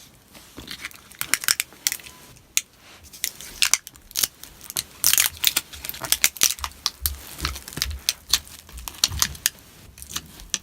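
Battery adhesive crackling and tearing as a glued battery cell is slowly pried out of an early 2013 MacBook Pro's aluminium case. It comes as an irregular run of sharp clicks and snaps, thickest in the middle.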